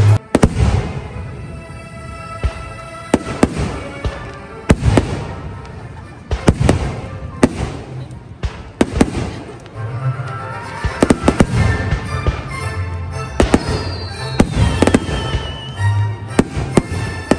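Aerial firework shells bursting in a string of sharp bangs, while the display's own accompanying music plays.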